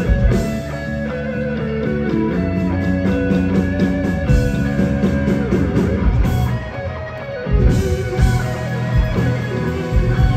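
Live rock band playing, with electric guitar and bass over a lighter passage marked by steady high ticks; heavy low hits come back in about three quarters of the way through.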